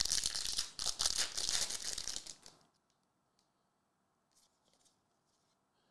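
A hockey card pack wrapper being torn open and crinkled, a dense crackling that stops after about two and a half seconds.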